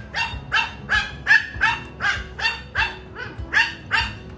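Small white dog yapping in a rapid run of high-pitched barks, about two and a half a second and each about as loud as the last.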